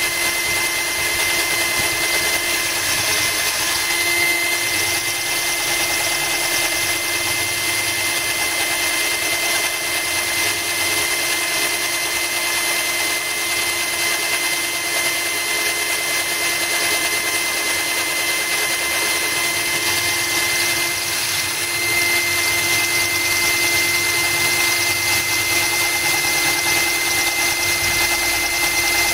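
Cordless drill running steadily with a high, even whine, its bit pressed into a glass bottle that is kept wet by a stream of hose water.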